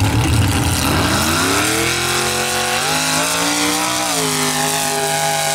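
Modified mud-racing truck's engine accelerating hard from the start line. Its pitch climbs steadily for about two seconds, jumps up near the three-second mark, dips briefly about a second later, then holds high.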